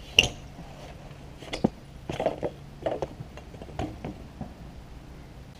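A BMX bike lands on concrete with one sharp clatter, followed by a few lighter scattered knocks and clicks from the bike.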